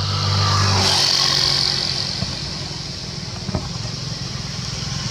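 A motor vehicle's engine running as it passes, swelling about a second in, over a steady high-pitched hiss, with a single knock a little past halfway.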